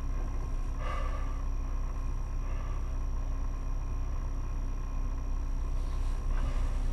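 Off-road vehicle's engine idling, a steady low rumble.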